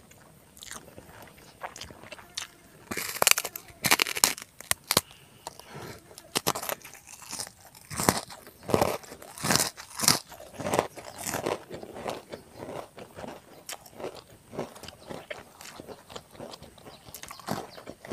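Close-up crunching and chewing of a crisp kerupuk cracker, in irregular bites, loudest in clusters about three to five seconds in and again around eight to eleven seconds.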